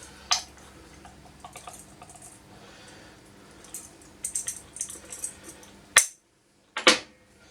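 Light clicks and taps of a measuring spoon against a spice jar while half a teaspoon of dried marjoram is measured out. About six seconds in there is a sharp click, then a dead gap of under a second where the sound cuts out, then another click.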